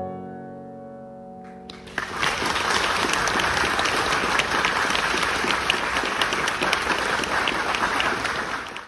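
A grand piano's closing chord rings and fades, ending the song; about two seconds in, the audience breaks into steady applause.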